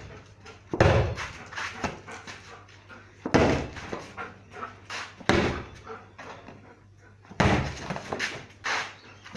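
Five heavy thuds and knocks, one every second or two, from a dog's game of fetch with a ball.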